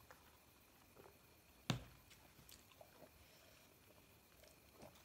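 Quiet eating sounds at a table of momos: faint chewing and small mouth and utensil clicks, with one sharp knock about two seconds in.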